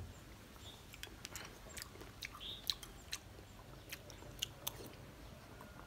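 A person chewing soft jelly dipped in milk, with scattered small clicks.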